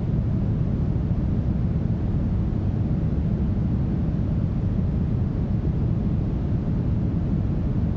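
Brown noise: a steady, deep hiss without change, its weight in the low end and thinning toward the highs.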